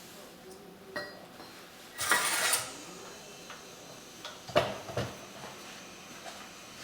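Metal pieces clanking and clattering against each other: a half-second clatter about two seconds in and two sharp knocks near the end, with a low hiss between.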